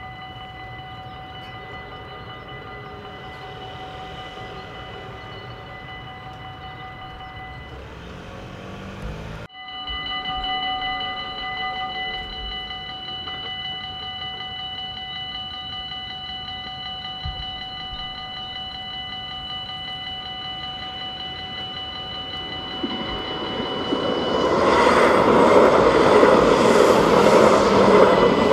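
Dutch level-crossing warning bell ringing steadily while the red lights flash. A tram passes close by: its rumble builds over the last few seconds and becomes the loudest sound near the end.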